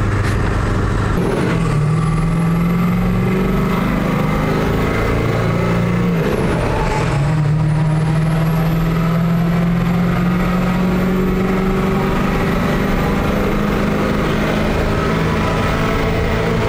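Turbo-diesel V8 of a Ford F-550 pulling hard under acceleration, with a thin high whistle from its stage-two KC turbo climbing as boost builds. The engine note and the whistle drop for about a second some six seconds in, then climb again.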